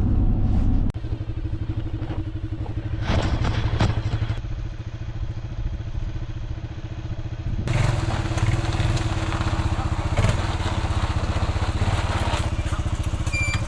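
A small engine running steadily with a fast, even firing beat, from about a second in.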